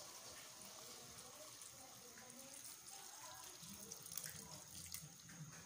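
Coconut milk poured in a thin stream from a stainless steel bowl into a stainless stockpot, a faint trickling splash. A few light clicks come near the end.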